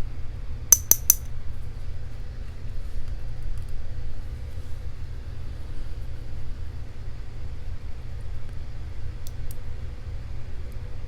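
Three quick, light metallic clicks about a second in, then two faint ticks near the end, from small lock pins and tweezers being handled while a padlock is taken apart. A steady low hum runs underneath.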